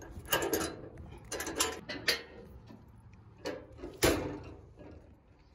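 Several short metal clacks and knocks as fittings on a dump trailer's tarp arm are handled, the loudest about four seconds in.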